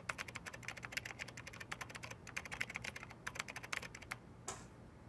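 Fast typing on a MacBook laptop keyboard: a quick, uneven run of key clicks that stops about four seconds in, followed by one last keystroke.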